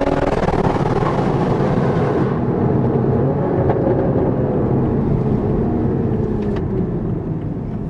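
Car engine and road noise at speed. The engine note falls slowly through the second half as the car slows down.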